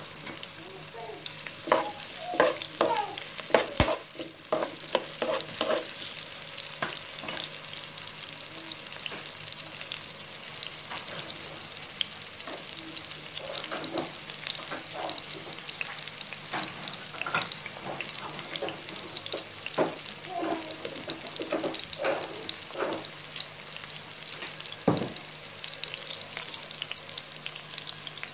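Sliced red onions sizzling in hot oil in a wok, a steady hiss. Scattered knocks and clicks come over it, bunched in the first few seconds and sparser afterwards.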